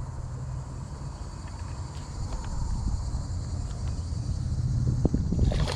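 Low wind rumble on the microphone outdoors, with a faint steady high insect drone. Near the end come a few sharp clicks and a louder rush of noise.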